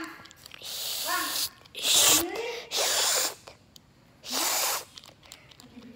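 A child making velociraptor noises by mouth: four breathy hissing snarls, each about half a second long, some with a short rising squeal.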